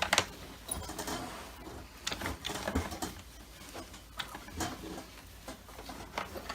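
Irregular clicks, taps and knocks of the plastic body and parts of a Dyson DC25 vacuum cleaner being handled, with a few louder knocks near the start and about two and a half seconds in.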